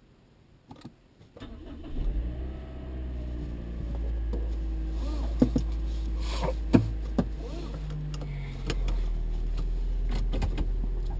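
Toyota Noah/Voxy 70-series engine cranking and starting about a second and a half in, then running at idle. A few seconds after start several sharp knocks or clicks sound over the engine, the abnormal start-up noise the owner is trying to catch.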